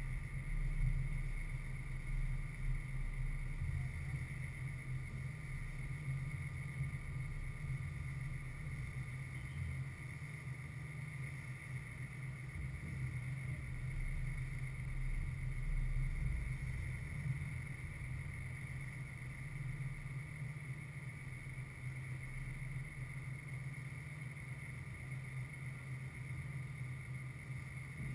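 Steady outdoor background noise: a low, uneven rumble with faint steady high-pitched tones, and no distinct events.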